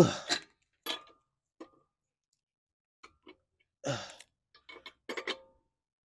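Metal clinks and ticks of a hand lug wrench on the lug nuts of a car's spare wheel as the nuts are tightened. The clinks are irregular, with louder bursts at the start and again about four seconds in.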